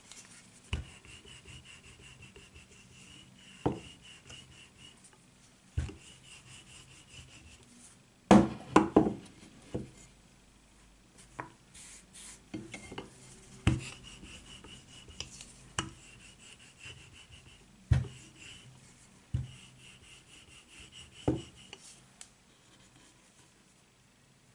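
Wooden rolling pin rolling out soft potato dough on a starch-dusted wooden board: a faint rubbing hiss broken by about a dozen scattered wooden knocks and taps, the loudest a short cluster about eight seconds in.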